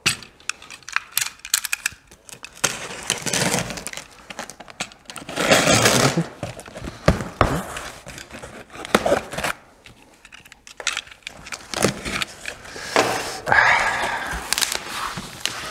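Utility knife cutting the packing tape on a cardboard shipping box, with sharp clicks and several longer rasps of tape ripping and cardboard scraping. Near the end the box flaps are pulled open.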